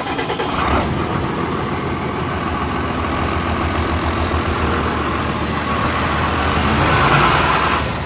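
A heavy vehicle's engine running steadily with a low rumble, slowly building to its loudest about seven seconds in.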